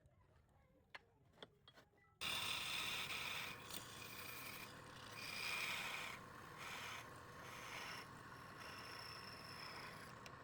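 A few faint clicks, then about two seconds in, a sudden scraping starts: spinning wood on a lathe worked against a tool or abrasive. It goes in uneven passes with brief dips, over a steady hum.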